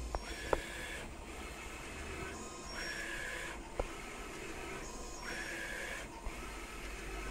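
UV printer printing on pens, its print-head carriage sweeping back and forth with a whining pass repeating about every two and a half seconds over a steady machine hum. Two sharp clicks come about half a second in and near four seconds.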